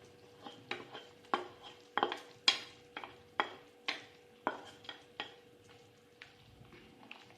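A metal spoon or ladle stirring in a cooking pot, clinking against its side about a dozen times in irregular strokes, then stopping about five seconds in.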